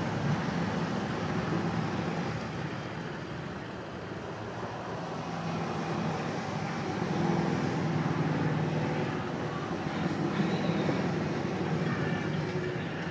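A procession of touring motorcycles riding past one after another, their engines swelling and fading as each bike goes by, with a lull about four seconds in before the next group passes.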